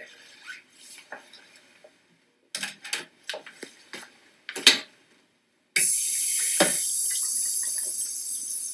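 A few scattered knocks and clicks, then, about six seconds in, a sink faucet turns on and water runs steadily into the basin as hands are washed under it.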